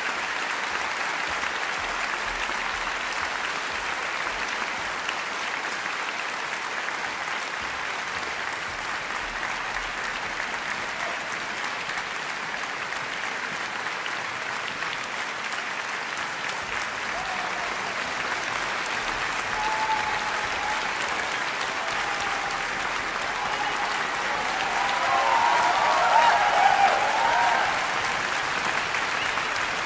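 Concert hall audience applauding steadily after a violin concerto, the applause swelling louder near the end.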